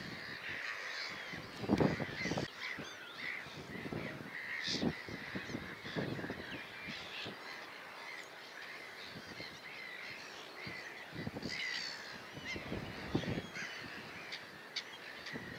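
Several wild birds calling and singing at once, many short chirps and trills overlapping, with scattered louder, lower calls; the loudest comes about two seconds in.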